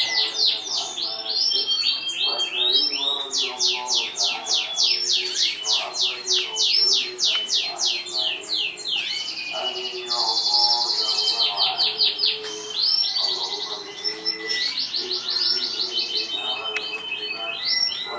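Canary singing a long unbroken song: rapid trills of repeated falling notes, one trill running into the next, with short steady whistled notes between them.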